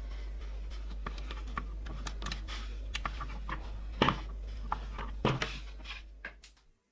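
Scattered light clicks and taps, a few sharper knocks among them, over a steady low hum; the sound fades out to silence near the end.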